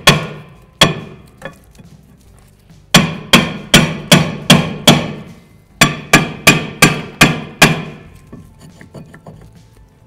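Steel hammer striking a rusted rear brake rotor to drive it off the hub: two blows, then two quick runs of about six sharp, ringing metal blows each, about three a second. Faint clinks follow near the end.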